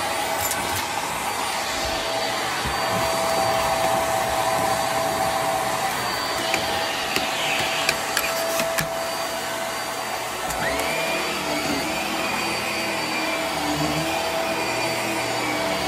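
Hart upright vacuum cleaner running steadily on carpet, its motor giving a constant whine. There are a few sharp clicks near the middle, and about two-thirds through the tone shifts as a higher whine comes in.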